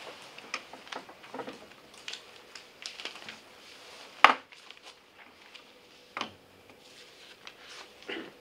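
Sheets of paper being shuffled and handled on a table, with light rustling and scattered small knocks of objects on the desktop. One sharp knock about four seconds in is the loudest sound.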